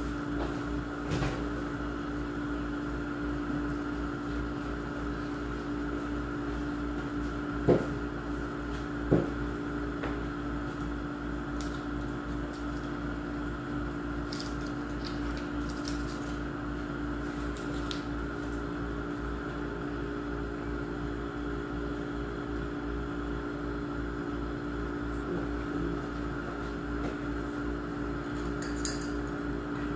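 Steady droning hum of a running household appliance, with two sharp knocks about eight and nine seconds in.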